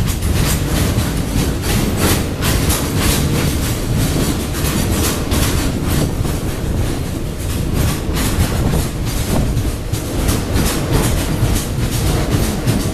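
Loaded container flat wagons of a freight train rolling past, the wheels clacking again and again over rail joints above a steady low rumble.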